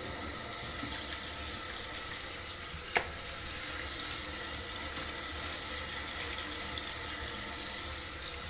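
Steady hiss of water running from a kitchen tap, with a single sharp click about three seconds in.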